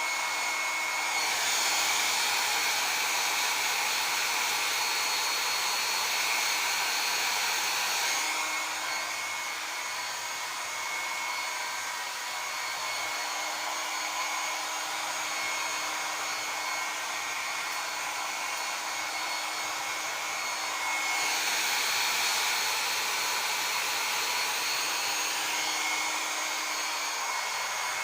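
Handheld hair dryer running steadily to dry hair, a constant whoosh of air with a motor whine. Its tone shifts about eight seconds in, going slightly quieter, and again about twenty-one seconds in, when it gets louder.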